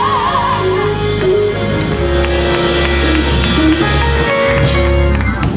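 Live church band music: held chords over a strong bass line, with a wavering high note that fades out about a second in. The music drops away right at the end.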